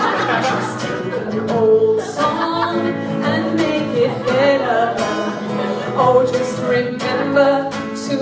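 A woman singing a pop song into a microphone over a strummed acoustic guitar.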